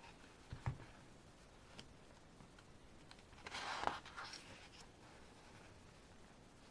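Pages of a CD album's photobook being turned by hand: a soft thump, then a short paper rustle with a sharp snap about four seconds in, followed by a smaller rustle.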